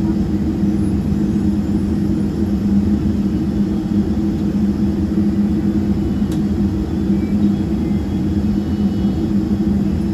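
The Boeing 777-300ER's GE90-115B turbofan engines running at idle, heard from inside the cabin: a steady rumble with a constant low hum.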